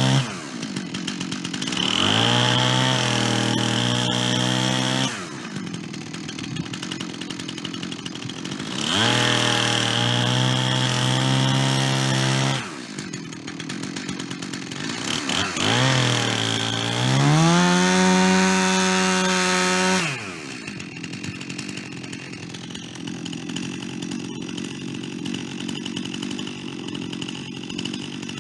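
Gas chainsaw revved to full throttle three times, each burst held for about three to four seconds, dropping back to idle in between and for the last several seconds; the cutting into white pine takes place during the revs.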